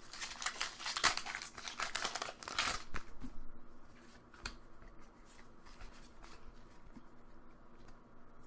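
Foil wrapper of a Pokémon booster pack crinkling and tearing as it is opened, loudest for the first three seconds, followed by faint clicks of cards being handled.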